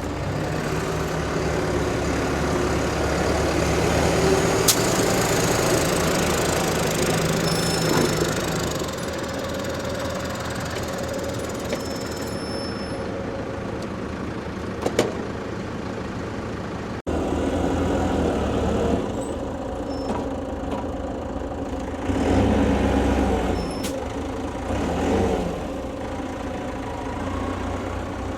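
Tractor engine running, with an abrupt break in the sound about two-thirds of the way through.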